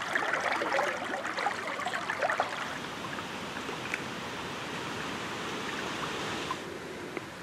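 River current rushing and splashing, with livelier close splashing and trickling in the first two seconds, then a steady rush that drops a little near the end.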